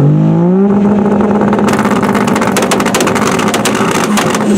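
Car engine revving up and held at high revs, with rapid crackling from the exhaust through the middle of it. The note begins to drop right at the end.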